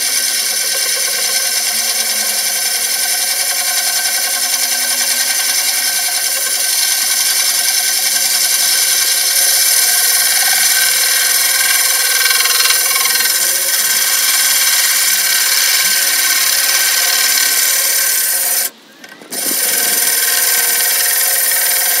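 DeWalt cordless drill turning a hole cutter slowly through aquarium glass, which is kept wet by running water: a steady, high-pitched grinding whine. It stops for about half a second near the end, then runs on.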